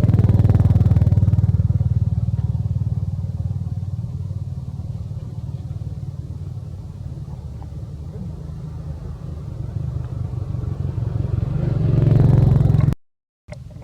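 A small engine running, loudest at the start, fading away over several seconds, then growing louder again before cutting off abruptly near the end.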